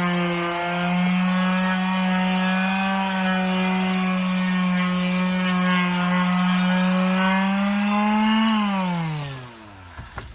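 DeWalt electric palm sander running steadily as it sands down the high spots of hardened Bondo putty on a wooden deck joist with coarse paper, roughly 80 to 100 grit. About eight and a half seconds in it is switched off, and its whine falls in pitch as it winds down to a stop.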